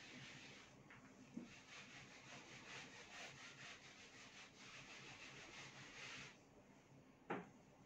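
A hand-held eraser wiped back and forth across a whiteboard: faint, rhythmic scrubbing that stops about six seconds in. There is a small thump about a second and a half in, and a short, sharp knock near the end, the loudest sound.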